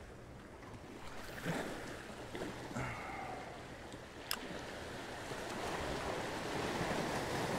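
Waves washing and breaking over jetty rocks, the surge swelling toward the end, with a single sharp click about four seconds in.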